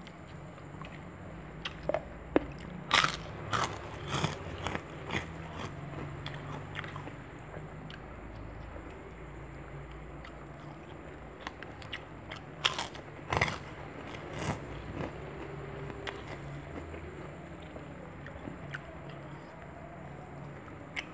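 Close-up mouth sounds of a person eating: chewing and crunching, with two clusters of sharp, crisp bites, one a few seconds in and another past the middle.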